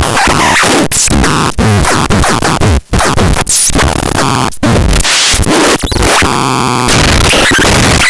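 Loud, harsh electronic noise, dense and chaotic. It is chopped by several sudden brief cut-outs and has a few wavering pitch glides through it.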